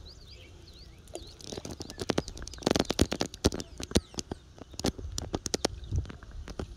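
Irregular sharp clicks and short rustling noises, busiest about halfway through, with faint bird chirps in the first second and a half.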